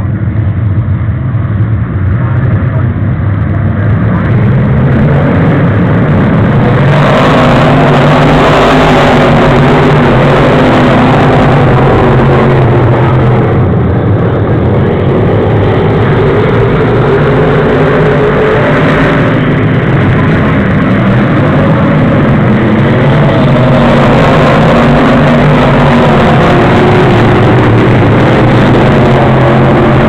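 Pro stock race cars' engines running at racing speed around an oval, a steady loud drone that swells twice as the pack passes close.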